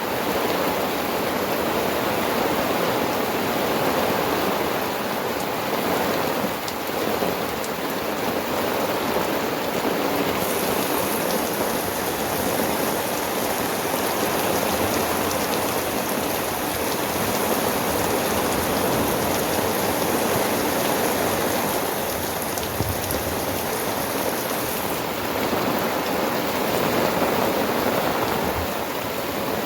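Steady rain falling, an even dense hiss with no let-up.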